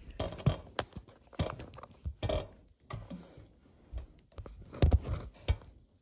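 A string of clicks, knocks and thumps as a phone is handled and set down on a glossy wooden table while a dog moves about close by. There is a short rustle a little after two seconds, and the loudest thumps come about five seconds in.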